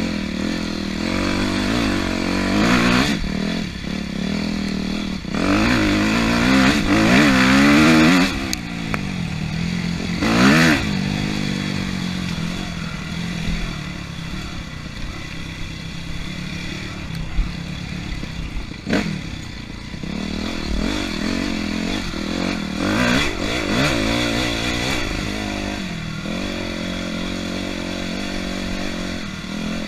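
250cc off-road dirt bike engine revving up and down as the throttle opens and closes, heard from on the bike, with clattering and knocks from the bike working over rough trail. The strongest rev surges come about six to eight seconds in and again around ten seconds, and there is a sharp knock a little past halfway.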